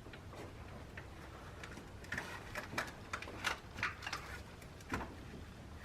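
Scattered sharp clicks and taps of hands and tools on metal parts in a car's engine bay, a few at first and then a quick irregular cluster from about two to five seconds in.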